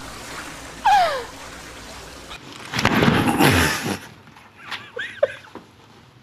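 Fountain water splashing, with a woman's short shriek falling in pitch about a second in. Then a loud burst of noise, followed by short bursts of giggling.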